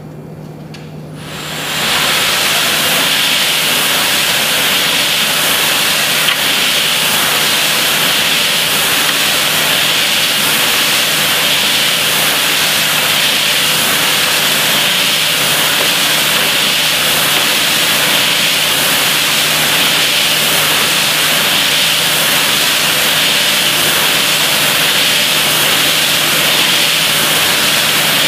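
MX010 stainless steel ribbon mixer starting up about a second and a half in and then running steadily, its turning ribbon churning a trough of black-and-white granules: a loud, even hiss of tumbling granules over a steady hum.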